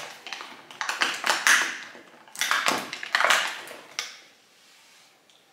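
Cardboard advent calendar door and packaging being opened and handled, crinkling and scraping in several bursts, then a single sharp click about four seconds in as the small nail polish bottle is taken out.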